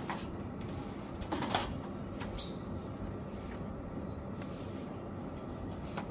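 Clothes hangers and laundry clacking and rattling against the bars of a stainless-steel drying rack as clothes are hung, a few separate knocks. Short high bird chirps sound now and then.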